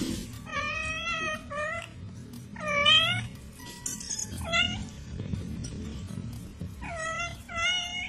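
Kitten mewing, six high, short cries, some in quick pairs, as an adult cat noses it awake.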